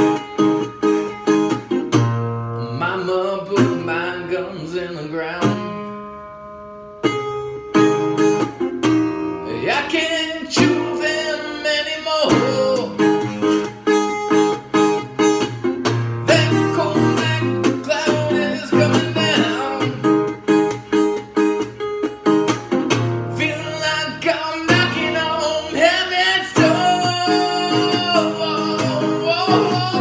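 Metal-bodied resonator guitar strummed in a steady rhythm while a man sings along. About six seconds in, a chord is left ringing and fades, then the strumming picks up again.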